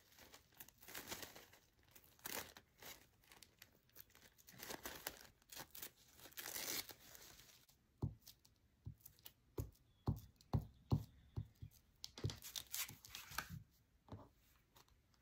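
A thin paper napkin being torn by hand around a printed motif, with crinkling and rustling. About eight seconds in, a glue stick is worked over paper on a cutting mat, making a run of short soft knocks.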